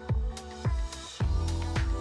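Background electronic dance music with a steady drum beat; a little over a second in, a heavier bass comes in and the music grows fuller.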